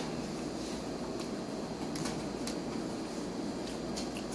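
Steady room noise with a few faint short clicks, about two, two and a half and four seconds in.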